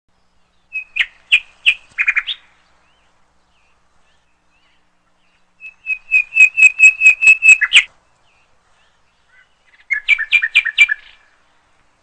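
Red-billed hornbill calling in three bouts of quick repeated notes, about four to five a second. Each bout lasts a second or two, the middle one the longest and loudest.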